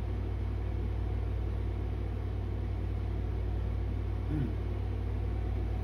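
Steady low rumble with a pulsing hum and no speech.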